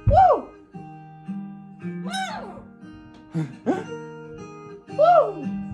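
Acoustic guitar picking through a song's intro. A bird's short, loud calls break in four times, about every one and a half seconds, each rising and then falling in pitch.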